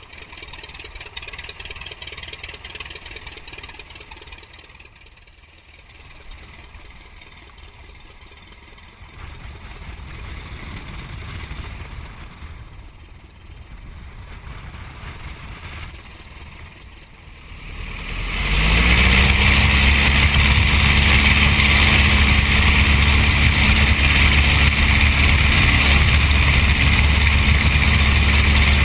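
A de Havilland Tiger Moth's Gipsy Major four-cylinder air-cooled engine runs at low power for about the first eighteen seconds, its level rising and falling while the biplane taxis. It then opens up to full throttle for the takeoff roll: the pitch rises briefly, then holds steady and much louder.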